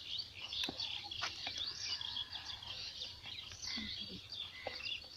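A chorus of small birds chirping and twittering together, with a few sharp clicks scattered through it.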